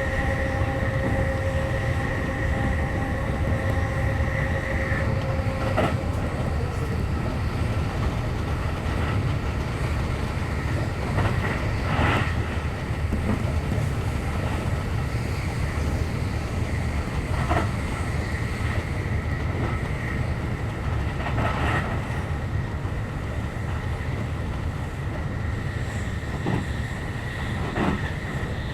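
Running noise heard inside a JR East E531 series electric train at speed: a steady low rumble of wheels on rail. A set of steady whining tones from the electric drive fades out about six seconds in, one sliding down in pitch, and single clacks over rail joints come every few seconds.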